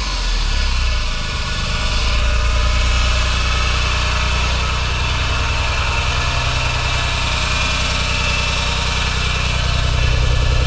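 Nissan 300ZX's twin-turbo VG30DETT V6 settling from a rev into a steady idle, with the abnormal engine noise the owner is trying to trace even though compression, timing and the VTC solenoids check out.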